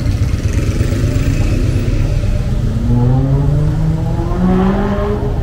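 A motor vehicle's engine accelerating, its pitch rising through the second half, over a steady low rumble of street traffic.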